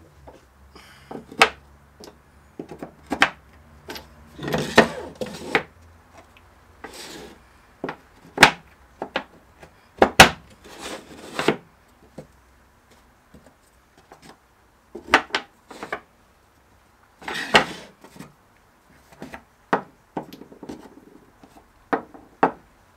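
Aluminium bench dogs with red collars knocking and clicking as they are set into and lifted out of the dog holes of a plywood workbench top, with a wooden board sliding and rubbing on the plywood as it is pushed against them. The knocks are sharp and scattered; the rubs are short scraping sounds between them.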